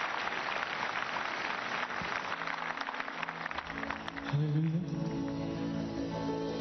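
A congregation applauding. About three and a half seconds in, the applause gives way to instrumental music with held chords and guitar.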